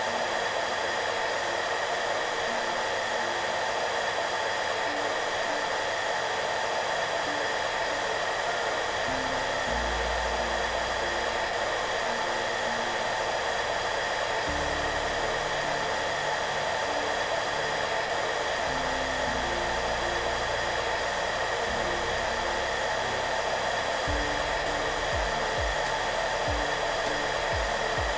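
Hair dryer blowing with a steady whir at a constant level, a couple of steady tones held in the noise. Soft background music plays underneath, its low bass notes coming in about a third of the way through.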